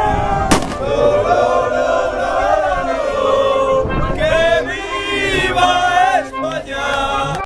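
A group of men singing a football chant together, holding long notes that rise and fall.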